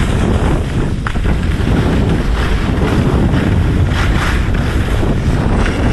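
Wind buffeting the microphone: a loud, steady low rumble with rushing noise over it.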